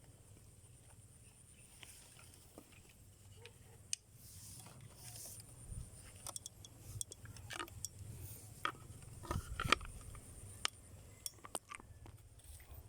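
Faint scattered clicks and brief rustling, sparse at first and growing more frequent from about four seconds in.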